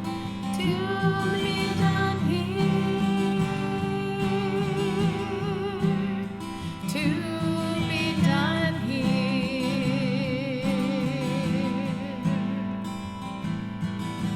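Worship song: a voice singing long held notes with vibrato over a strummed acoustic guitar. A new sung phrase starts about seven seconds in.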